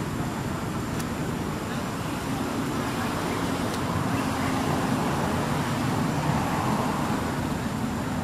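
Steady road traffic noise that swells about four seconds in and eases off near the end.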